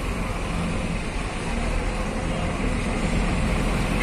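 Steady motor-vehicle running noise with a low engine rumble, the sound of street traffic.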